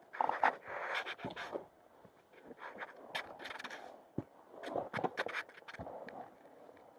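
A hiker breathing hard on a steep mountain climb, with repeated breaths about once a second, and footsteps and sharp clicks of boots or trekking poles on the rocky trail.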